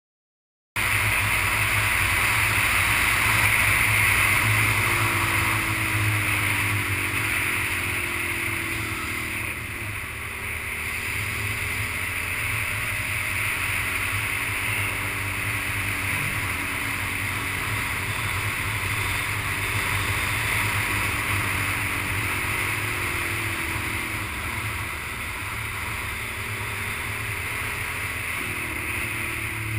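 Suzuki SV650S V-twin motorcycle engine running at speed under steady wind rush on the camera microphone, its pitch slowly rising and falling with the throttle through the curves. The sound cuts in abruptly just under a second in.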